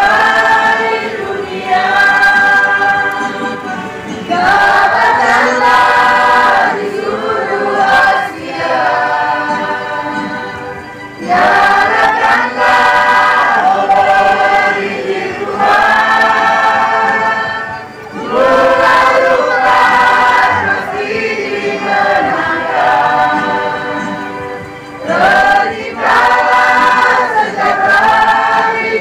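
Mixed choir of men and women singing a hymn of praise in parts, in long held phrases with short breaks for breath between them.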